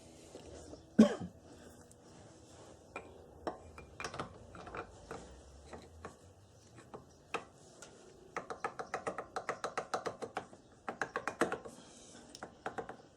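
Hand tools working on metal: scattered clinks and one sharp knock about a second in, then two quick runs of evenly spaced clicking from a ratchet spanner as the starter motor's bolts are run in.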